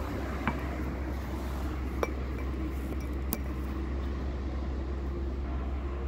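Steady low outdoor background rumble with a few sharp clicks and clinks, about half a second, two seconds and three and a half seconds in.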